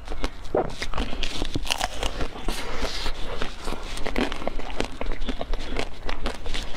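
Close-miked chewing: a dense run of quick clicks and crackles from a person eating a green-coated dessert with a soft white creamy filling.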